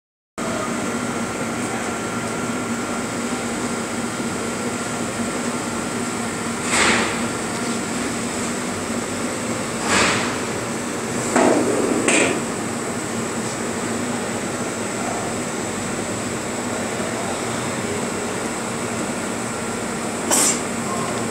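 Steady appliance hum, broken five times by short, sharp knocks or bangs: two spaced a few seconds apart, a close pair a little past the middle, and one more near the end.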